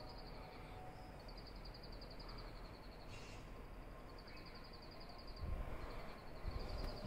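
Night insects trilling in repeated high, pulsing bursts a second or two long with short gaps, over a steady outdoor hiss. Low rumbles on the microphone near the end.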